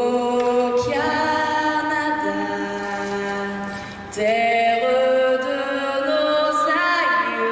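Slow a cappella choral singing: long held notes that move to a new chord a few times.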